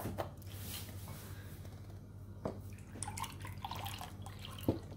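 Light kitchen handling: a few small knocks and drips as a milk carton is handled over a glass mixing bowl, with a low steady hum underneath.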